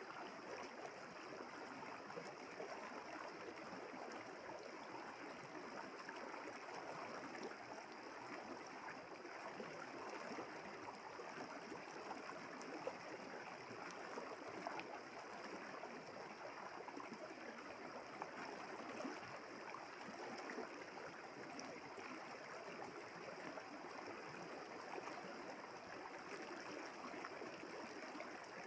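River water running steadily, a constant, even rush of flowing water.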